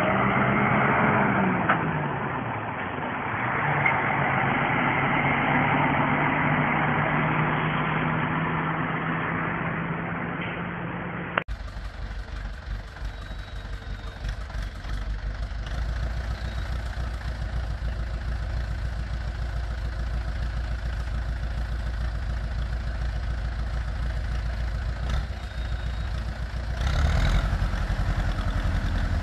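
A truck loaded with hay bales drives past with its engine running, the pitch falling and rising. After a sudden cut, a small farm tractor's engine runs steadily, louder for a moment near the end as the implement's bale arm lifts.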